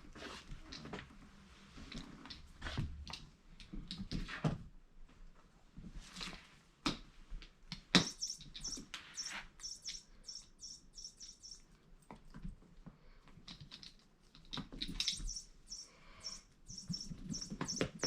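Electronic chirping bird cat toy tweeting in two runs of rapid, high chirps, among scattered taps and knocks.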